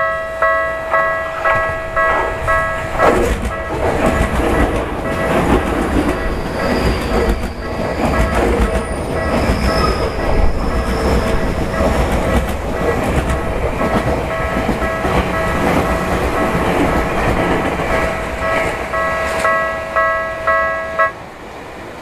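Railway level-crossing bell ringing in quick repeated dings, about two and a half a second, while a Tokyu Toyoko Line electric commuter train passes close by with wheels clattering over the rail joints. The bell cuts off suddenly near the end as the crossing clears.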